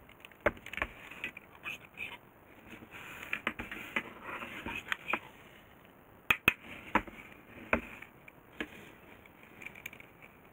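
Metal teaspoon clinking and scraping against jars and a plastic measuring jug while dry ingredients are spooned out, with a plastic sugar bag rustling. Several sharp clinks, a pair of them close together about six seconds in.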